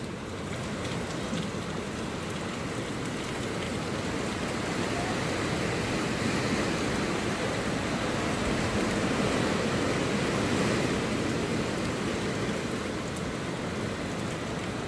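Hurricane wind and rain: a steady rushing noise that swells a little around the middle.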